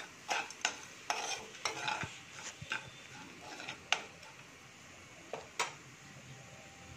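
Metal spoon scraping and clinking against a metal kadai as onions fried with turmeric and chilli powder are stirred, over a faint sizzle. The clinks come often for the first four seconds, then only a couple more.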